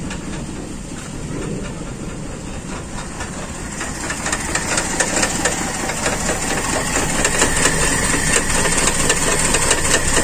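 Toyota Kijang's carbureted four-cylinder engine idling roughly with a misfire, a steady uneven running with fast ticking that gets louder about four seconds in. The owner suspects a faulty distributor cap.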